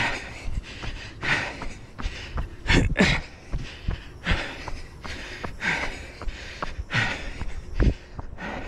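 A runner's heavy breathing, with a hard, hissing breath about every second and a half, and footfalls thudding underneath.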